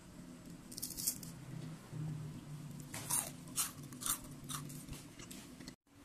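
Crispy fried potato snacks crunching and crackling in short bursts, a handful of crisp cracks spread over a few seconds, over a low steady hum.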